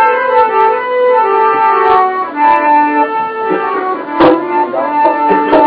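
Harmonium playing a melody of held reedy notes that step from pitch to pitch, with a few sharp knocks, the loudest about four seconds in.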